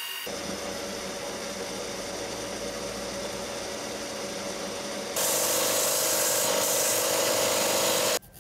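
Milling machine running steadily as a countersink cutter chamfers a hole in a metal part held in the vise. About five seconds in, a louder, hissing belt sander takes over with a part held against the abrasive belt, and it stops abruptly near the end.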